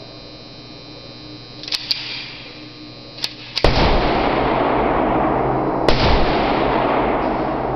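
Gunshots on an indoor range: a few fainter sharp cracks, then a loud shot about three and a half seconds in that gives way to a loud steady rushing noise lasting several seconds, with another sharp crack about six seconds in.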